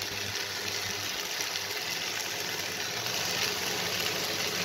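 Chopped mixed vegetables frying in oil in a kadai, giving a steady sizzle.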